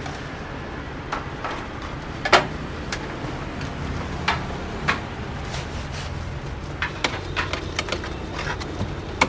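Street-food stall ambience: a steady low hum of street traffic with scattered sharp clicks, clinks and knocks of handling at the stall, the loudest about two and a half seconds in. A thin high whine comes in near the end.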